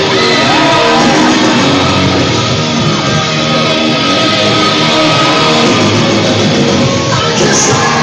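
Wrestler's rock entrance music blaring over the PA in a large hall, with the crowd shouting and cheering along.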